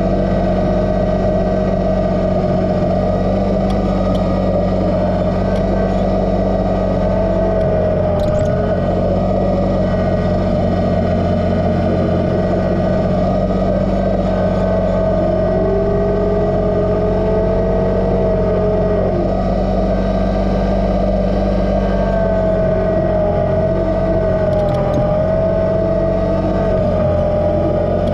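Kubota BX2380 sub-compact tractor's three-cylinder diesel engine running steadily, with a whine that rises and falls in pitch several times.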